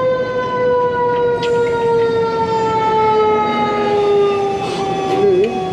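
Emergency vehicle siren: one long held wail that slowly falls in pitch, breaking into a quick up-and-down warble near the end.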